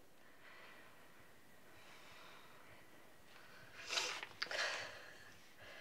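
Two short sniffs or breaths through the nose, about half a second apart, a little after the middle, over quiet room tone.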